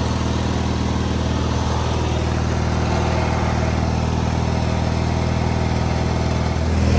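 Craftsman II garden tractor's engine idling steadily while its electric linear actuator runs to lower the sleeve hitch.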